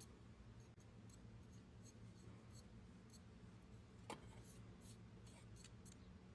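Near silence over a faint steady hum, with scattered light clicks and one sharper click about four seconds in, from small fan parts being handled and fitted back together.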